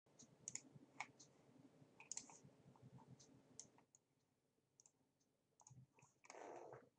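Faint clicking of a computer mouse: many quick clicks over the first four seconds, then a few more, and a short noisy rustle lasting about half a second near the end.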